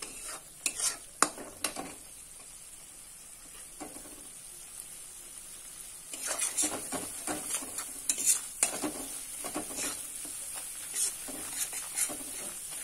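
Spiced onion masala sizzling in hot oil in a non-stick kadai, fried through until the oil separates, with a plastic spatula stirring and scraping it in short strokes, a few in the first two seconds and more from about halfway on.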